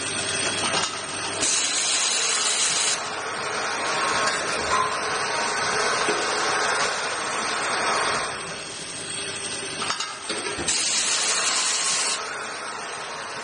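Automatic rotary-table drilling and tapping machine running: steady machinery noise with a few clicks, and two bursts of high hiss, each about a second and a half long, one near the start and one near the end.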